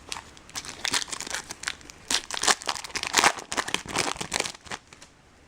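Foil baseball-card pack wrapper crinkling and crumpling in the hands in a rapid, irregular crackle, dying away shortly before the end.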